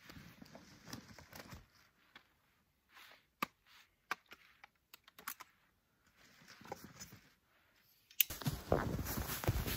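Light rustling and scattered small clicks as gear and a folding saw are handled. About eight seconds in, louder, steady crunching footsteps in deep snow take over.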